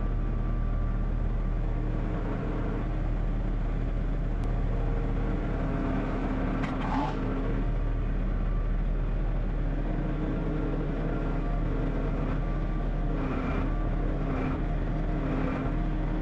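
A motor vehicle engine running at a steady speed, with no clear revving or change in pitch.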